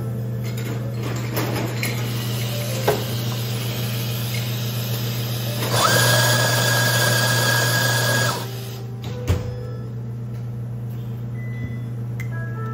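Electric coffee grinder motor whirring for about two and a half seconds in the middle, its whine rising as it spins up and cutting off abruptly, over a steady low machine hum. A couple of sharp knocks, one before and one after.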